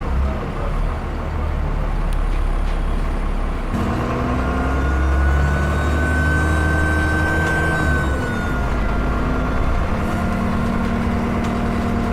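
Dennis Enviro 400 double-decker bus engine running under power, with a thin, high turbocharger whistle that comes in about four seconds in, climbs slowly, then dips a little just before eight seconds and carries on.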